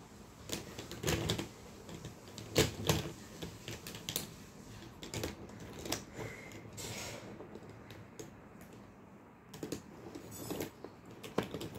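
Small plastic makeup items, lipstick and lip-pencil cases, being picked through and set down on a table: irregular sharp clicks and knocks, a few louder ones, with a short rustle near the middle.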